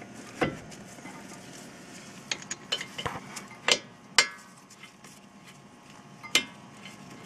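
Brake caliper and its 14mm caliper bolts being handled and threaded in by hand: a scattered series of sharp metallic clicks and clinks, loudest about four seconds in.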